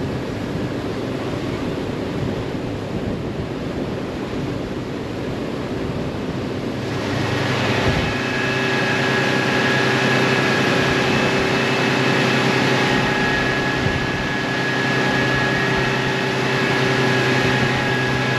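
Outboard motor of a small boat running at speed, with the rush of wind and water around it. About seven seconds in, the engine's steady hum comes up clearer and a little louder.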